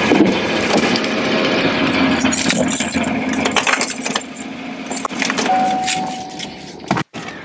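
A 2014 Chevy Silverado being switched off, with rustling and keys jangling. The running noise drops away about five seconds in, and a steady single-pitch chime sounds for about a second.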